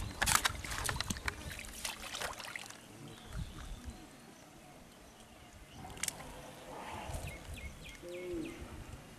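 Splashing and sloshing in shallow muddy water, a quick run of sharp splashes in the first couple of seconds, then quieter.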